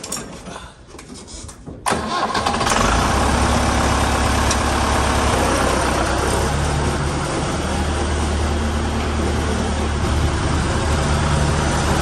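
Massey Ferguson 65 tractor's four-cylinder engine started: a few light knocks as the driver climbs on, then the engine cranks and catches about two seconds in and settles to a steady idle.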